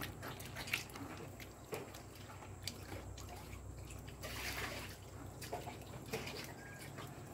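Wooden spoon rubbing green rice-flour dough against a woven bamboo sieve basket: faint scraping with scattered light clicks of the spoon on the bamboo, over a low steady hum.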